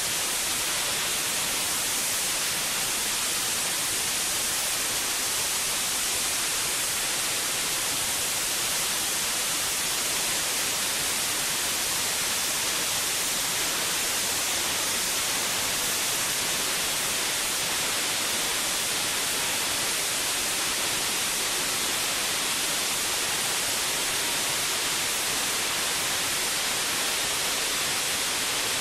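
Steady, loud hiss of fire hose fog nozzles spraying water into a diesel fire, with no change in level.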